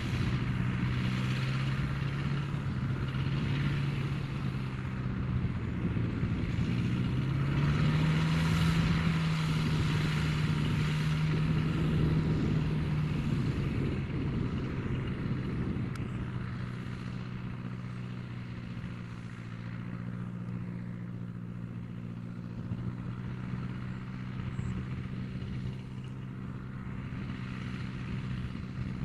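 Engine of a homemade wheeled farm vehicle running steadily as it drives through floodwater in a rice field. Its pitch rises about seven seconds in, holds for several seconds, then drops back.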